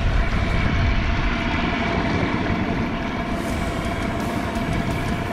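Boat engine running steadily at trolling speed, with a faint steady whine over a rough low rumble of wind and water.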